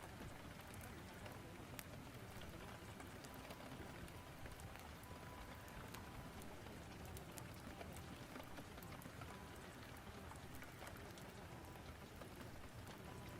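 Quiet, steady rain-storm ambience: an even hiss of falling rain, sprinkled with faint scattered clicks.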